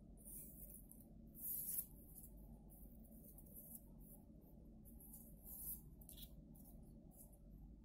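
Faint rustling of a thin paper quilling strip being handled and wound into a spiral, a few short rustles, the loudest about a second and a half in.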